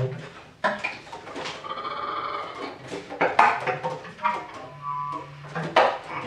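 Bass clarinet played solo as a broken string of sharp, sudden attacks and short low notes, with thin high held tones about two seconds in and again near five seconds.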